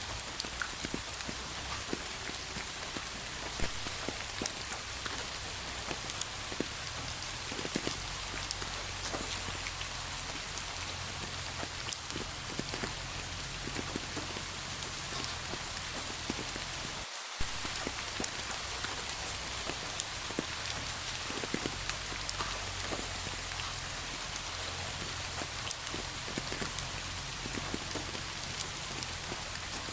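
Steady rain falling, with many separate drops ticking on a surface through an even hiss.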